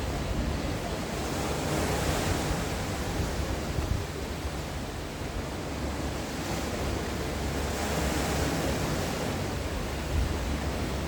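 Sea waves breaking and washing against the shore, the surf swelling and ebbing in slow surges, with a low rumble of wind on the microphone.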